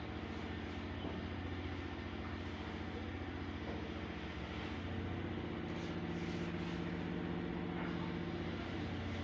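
An engine running steadily with an even low hum, a stronger, slightly higher hum joining about five seconds in and fading near the end.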